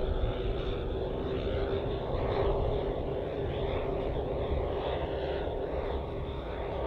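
The twelve 10 cc O.S. model engines of a large scale Dornier Do X flying-boat model droning steadily together as it flies by. It is a dense, even buzz with a steady pitch.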